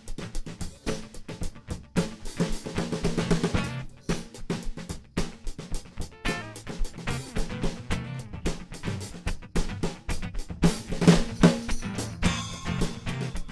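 Live instrumental music break: drums playing a busy beat with snare, kick and rimshot hits over guitar.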